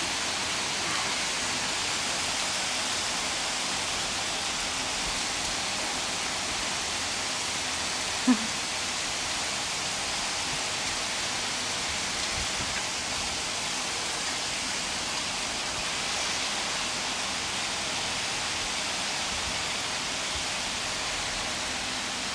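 Steady hiss of heavy rain mixed with hail falling on paving stones and grass. A single brief loud knock sounds about eight seconds in.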